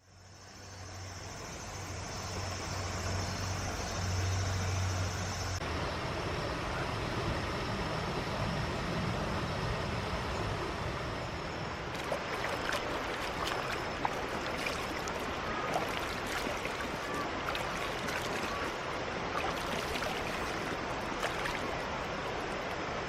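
Steady rushing of a mountain stream. A low hum runs under it for the first five seconds or so, and faint scattered ticks come in about halfway through.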